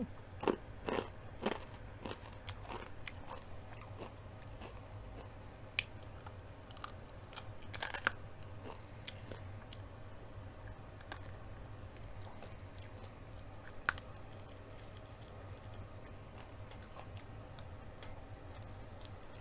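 Close-up biting and chewing of crispy deep-fried chicken: a quick run of crunches in the first two seconds, another cluster about eight seconds in, then softer chewing.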